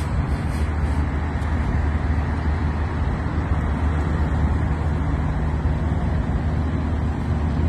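Heavy truck's diesel engine idling with a steady low rumble.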